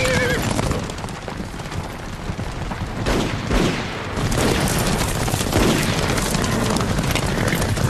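Film soundtrack of a band of horses galloping through a muddy street amid a volley of gunshots, with a dense run of sharp bangs and hoof impacts throughout.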